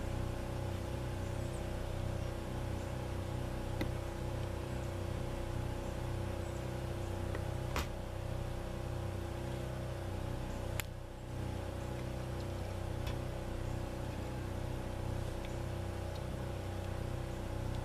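An engine running steadily, a constant hum made of several low tones, with a few sharp clicks over it.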